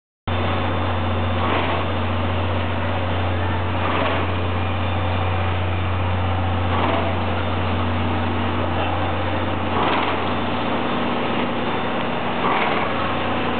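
JNR C57 180 steam locomotive standing with steam up: a steady low hum under a hiss of steam, with a louder puff of noise about every two to three seconds.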